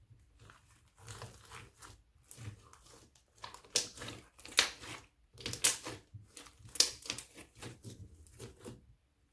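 Crunchy slime being squeezed and pressed by hand, giving bursts of dense crackling and popping clicks that come and go, loudest in the middle and stopping just before the end.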